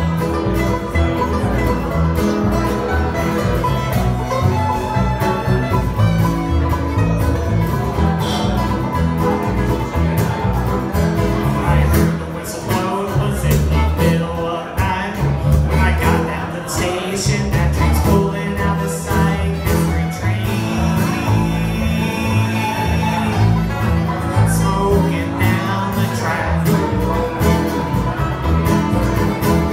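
Bluegrass band playing live: banjo, fiddle, acoustic guitar and upright bass together.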